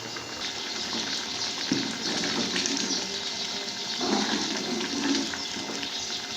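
Pot of moong masoor dal bubbling on the stove: a steady watery hiss with louder bubbling swells about two and four seconds in.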